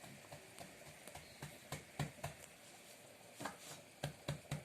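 Soft, irregular taps and pats of hands shaping stuffed pieces of bread dough on a work surface, a little louder and closer together near the end.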